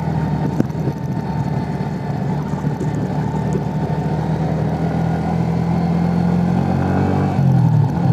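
Motorcycle engine running steadily while riding, heard from the rider's own bike; the engine note shifts in pitch near the end.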